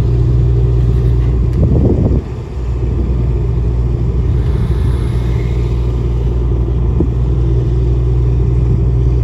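Car ferry's engines running steadily with a low rumble and hum, holding the ship against the berth after docking, with propeller wash churning the water. A brief louder noise comes about two seconds in.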